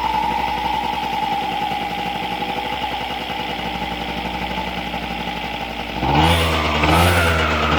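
TGB Bunny scooter engine running with freshly fitted variator roller weights, its note slowly falling as it settles; about six seconds in the throttle is opened and the engine is revved up in quick blips.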